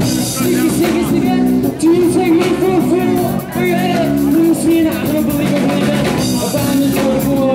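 Live punk rock band playing: distorted electric guitar, bass guitar and drum kit, with a male singer's voice over them.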